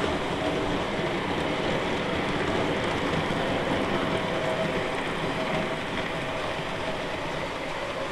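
Long Tri-ang Hornby model freight train of bogie wagons running past on the track: a steady rolling rumble of small wheels on the rails, fading slightly near the end as the last wagons go by.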